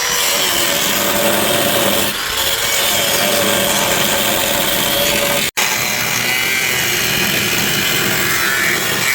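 Power tool grinding on the car's metal body panels: a loud, steady grinding noise with a held whine, broken off once for an instant a little past halfway.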